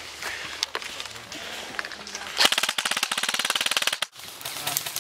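Airsoft gun firing one rapid full-auto burst of about a second and a half, starting about halfway in and cutting off suddenly.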